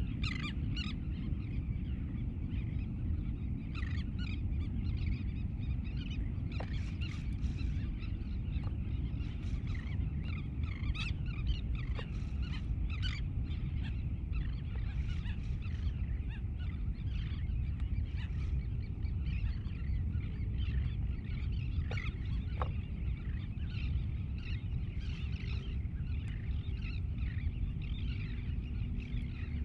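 Birds calling over and over in short, irregular calls, over a steady low rumble.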